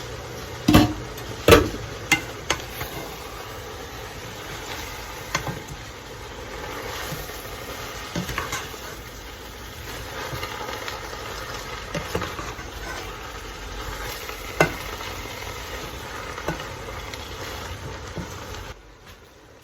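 Food sizzling in a frying pan while it is stirred with a utensil, with several sharp knocks of the utensil against the pan. The sizzling cuts off abruptly near the end.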